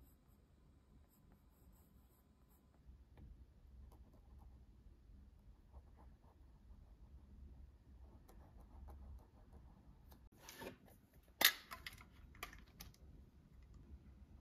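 Drawing pen and pencil strokes scratching faintly on sketchbook paper, with a louder burst of scratching and a sharp tap about ten to eleven seconds in.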